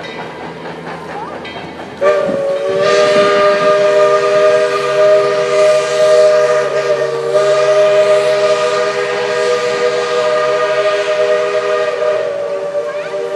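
Steam locomotive's whistle blowing one long blast, a chord of several steady tones that starts abruptly about two seconds in and holds for about eleven seconds. Before it, the train is heard running along the track.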